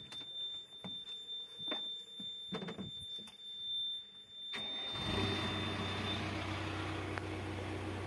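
Case backhoe loader's diesel engine being started: a steady high-pitched warning tone and a few knocks in the cab, then about halfway through the engine fires up and settles into a steady idle, and the tone stops soon after.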